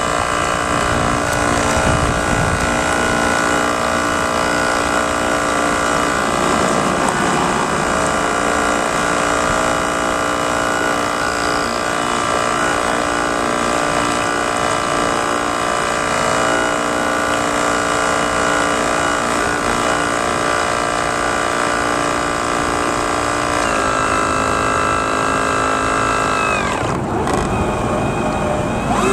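Radio-controlled model boat motor running with a steady whine, easing down in pitch about three-quarters of the way through, cutting out briefly, then starting up again near the end.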